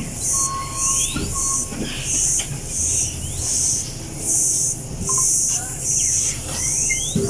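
High-pitched insect chirping in regular pulses, a little under two a second, with a few rising whistle-like glides.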